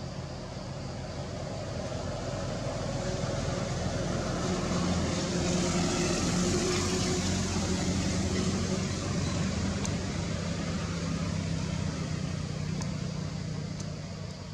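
A motor vehicle's engine passing by: a steady drone with a low hum that swells to its loudest about six seconds in and fades again.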